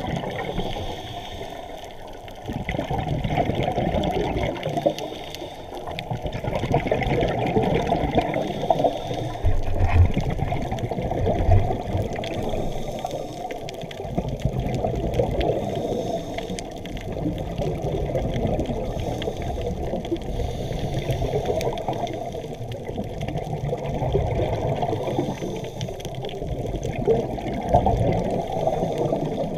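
Scuba regulator exhaust bubbles gurgling underwater, a muffled, bubbly rush that swells and fades in waves every few seconds with the divers' breathing.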